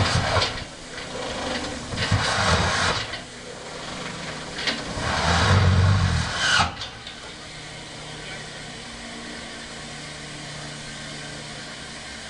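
Steam locomotive LSWR M7 tank 30053 venting steam in several loud hissing bursts over the first seven seconds, the last and loudest with a deep rumble under it. The venting then settles to a steady, quieter hiss with a low hum.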